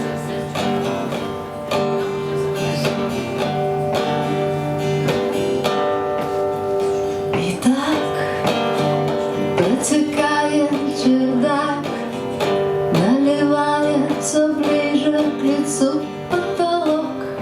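Song intro on strummed acoustic guitar. From about eight seconds in, a sliding melodic line that swoops up into its notes joins the chords.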